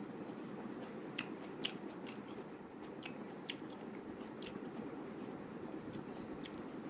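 Close-miked eating: chewing and wet mouth sounds, with sharp crisp clicks about once a second, over a steady low background noise.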